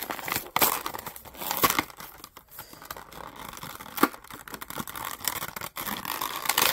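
Clear plastic blister pack and its card backing crinkling and tearing as a die-cast toy car package is opened by hand. The rustling is irregular, with short crackles and a sharp click about four seconds in.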